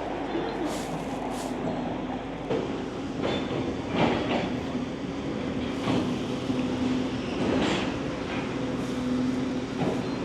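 Demolition excavator running steadily under load, its engine humming, with about half a dozen sharp crunches and clanks as its jaw attachment bites into the building.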